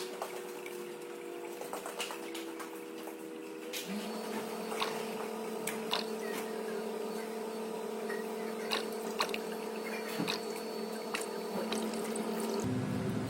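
Liquid flowing, likely engine oil during an oil change, with a steady hum whose pitch steps up about four seconds in and scattered light clicks.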